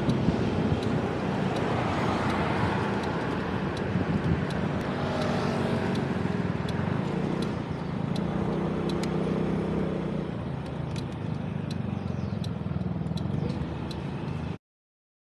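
SYM motor scooter being ridden through traffic: its small engine running, with road and wind noise, and a regular light ticking a little under twice a second through much of it. The sound cuts off abruptly near the end.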